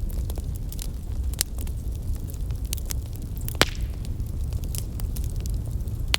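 Bonfire burning outdoors, crackling with irregular sharp pops over a low steady rumble. One pop a little past halfway is louder than the rest.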